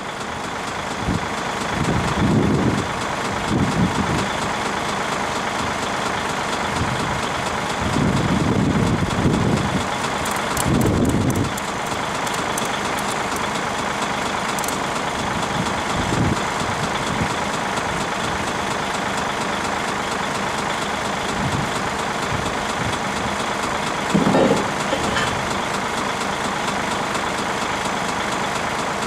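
Heavy diesel vehicle engine running steadily, with several brief louder low surges.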